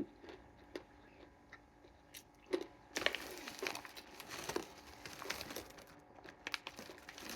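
Almonds being chewed, close up: a few faint crunches at first, then steady crunching from about three seconds in.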